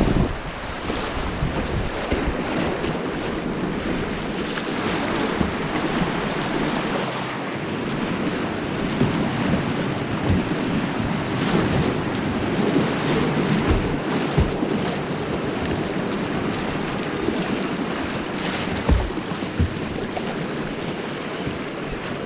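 River water rushing steadily over rapids, with wind buffeting the microphone and a few short knocks.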